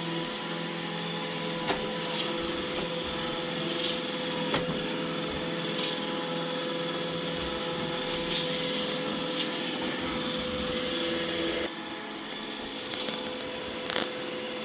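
iRobot Roomba E6 robot vacuum running, a steady motor whine with scattered sharp clicks and knocks. About twelve seconds in, the sound drops a little quieter.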